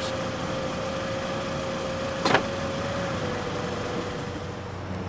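Steady hum inside a parked car's cabin, with one sharp click a little over two seconds in as the car door's latch is opened.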